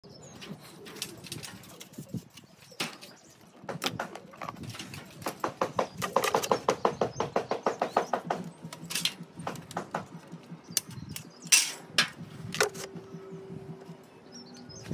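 Clicks, taps and knocks from a long aluminium fascia profile being handled and fitted against the edge of a wooden roof overhang, with a quick run of rapid clicks in the middle. A faint steady hum starts near the end.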